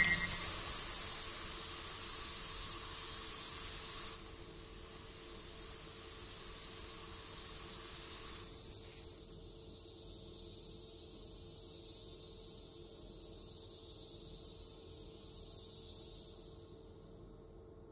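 Eerie sound-design drone: a high, wavering whine over a faint low hum, with a broad hiss that cuts off about eight seconds in. The whine then swells and fades away near the end.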